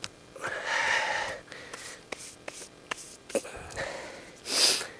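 A man breathing hard from physical work: a long breathy exhale about half a second in, small scattered clicks, and a loud sharp nasal breath, like a snort or sniff, about four and a half seconds in.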